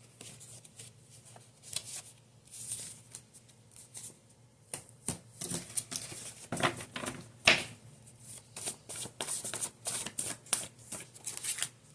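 Tarot cards being handled and shuffled by hand: scattered light card clicks at first, then from about halfway a quicker patter of riffling with a few louder snaps.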